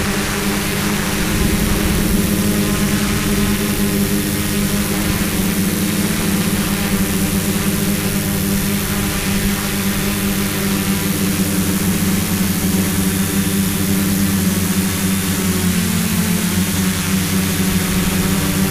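Hexacopter's electric motors and propellers humming steadily while it hovers, heard from the camera on board, with a brief rise in pitch about sixteen seconds in.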